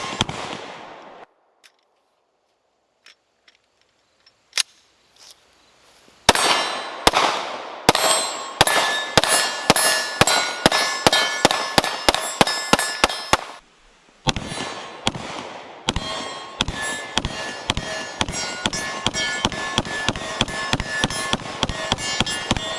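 Glock P80 9mm pistol fired in steady strings of shots, about two to three a second, each shot followed by a metallic ringing clang. After a few quiet seconds the firing starts, pauses briefly about halfway, then resumes faster.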